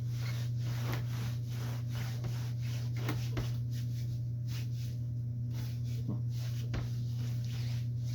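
A rag rubbing over the chop saw's greased parts in many short wiping strokes, cleaning them down with WD-40, over a steady low hum.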